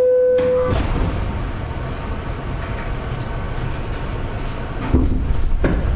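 The lower second note of a New York City subway car's two-tone door chime, then the D train car rumbling along the elevated track, with a louder clank about five seconds in and another just after.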